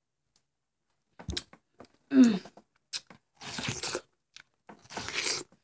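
A person biting into a watermelon slice face-first and chewing the wet flesh, in crunching, tearing bursts starting about a second in. About two seconds in there is a short vocal sound that falls in pitch, the loudest moment.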